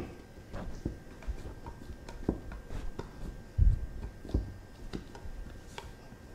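Soft, irregular thumps and knocks of hands pressing bread dough into a metal loaf pan, the pan bumping on a wooden tabletop, the loudest a little past halfway. A faint steady hum runs underneath.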